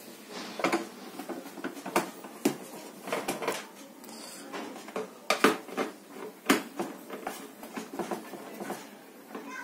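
Long screwdriver clicking and scraping in the screw holes of a plastic room-heater housing as the casing is unscrewed, with irregular sharp knocks of metal on plastic.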